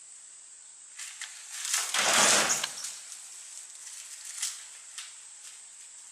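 Lotus leaves crackling and rustling as they are crushed and torn, loudest for about a second near the two-second mark, with a few sharp clicks before and after.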